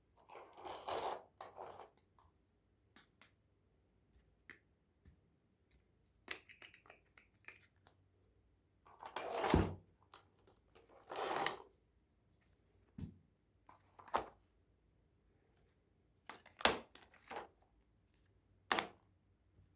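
Toy pieces being handled and set down: scattered clicks and knocks, with a few longer, louder clatters near the start and around halfway through.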